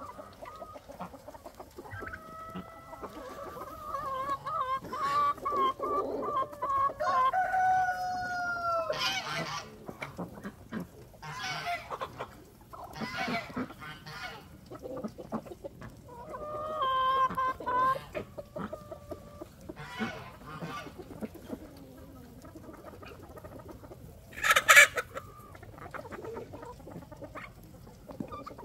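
Chickens clucking, with roosters crowing in long drawn-out calls, several in the first third and another about two-thirds of the way through. A brief loud harsh burst sounds near the end.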